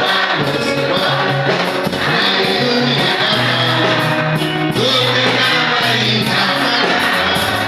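Upbeat gospel praise song: voices singing over a band, with a bass line stepping through notes and a steady beat.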